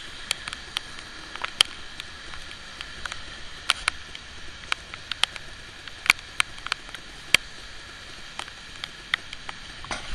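Heavy rain falling on wet pavement: a steady hiss with scattered, irregular sharp ticks.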